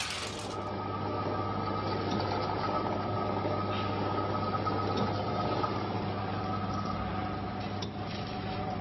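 Automatic tablet counting and pouch packing machine running: a steady motor hum with a held whine and faint ticks from the rotary sorting disc. A louder rattle of pieces in the disc cuts off under a second in.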